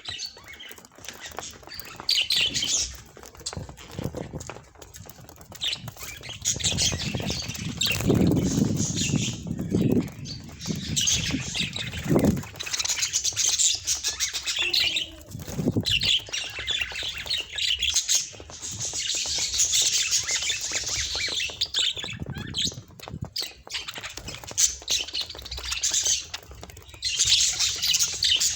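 Budgerigars chattering and squawking in repeated bouts of fast, high chirps, with a lower rustle about a third of the way in.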